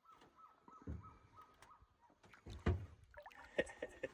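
A bird calling a run of short falling notes, about three a second, that stops a little under two seconds in. Two low thumps break in, the louder one about two-thirds of the way through.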